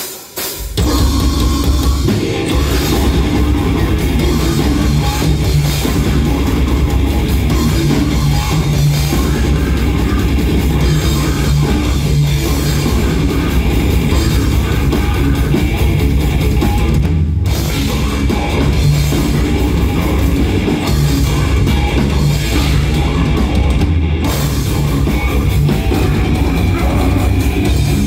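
Extreme metal band playing live at full volume: distorted electric guitar over a Sonor drum kit played fast and hard. The band comes in together about a second in after a brief silence, with two very short full stops later on.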